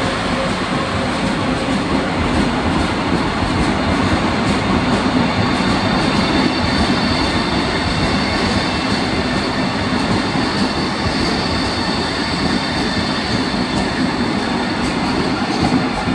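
PKP Intercity ED250 Pendolino electric multiple unit rolling slowly past along the platform: a steady rolling rumble from its wheels on the rails, with a steady high whine over it.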